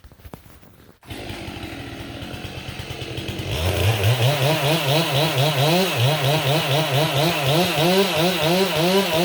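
Chainsaw idling, then opened up to high revs about three and a half seconds in, its pitch rising and falling about twice a second as it works through the back cut on a tree.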